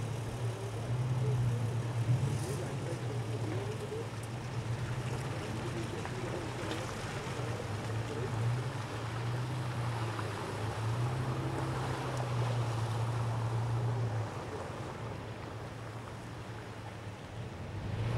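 An off-road SUV's engine running at low revs, a steady low hum that swells and eases, with rushing noise from tyres and wind over it.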